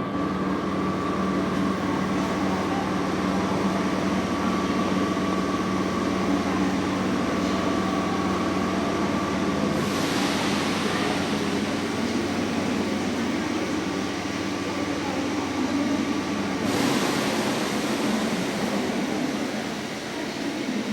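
Train station ambience: a train's steady rumble with a constant humming drone. About halfway through a hiss comes in over it, lasts some seven seconds, and cuts off sharply.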